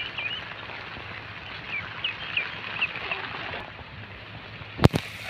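Young ducks peeping in short, high calls several times over a steady hiss of light drizzle; a sharp click near the end.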